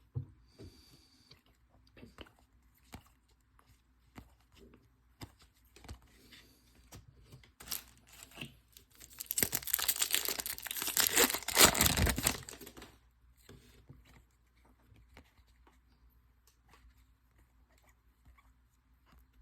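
A trading-card pack's wrapper is torn open and crinkled in a loud stretch of a few seconds near the middle. Small clicks and rustles from cards being handled come before and after it.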